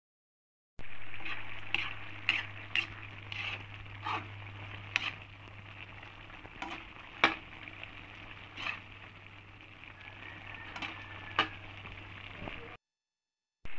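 Pan of ground-pork menudo sizzling while a metal ladle stirs it, knocking and scraping against the pan a dozen or so times. It starts about a second in and cuts out briefly near the end.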